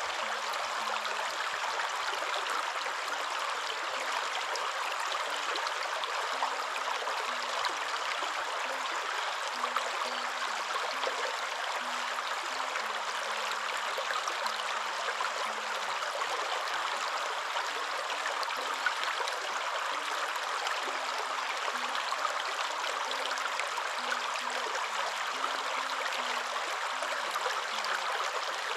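Waterfall rushing, a steady, even roar of falling water with no change.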